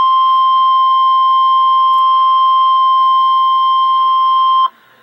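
Emergency Alert System warning alarm tone: the single steady 1050 Hz tone of a NOAA Weather Radio broadcast, signalling a severe weather warning. It holds loud and unchanging, then cuts off suddenly near the end.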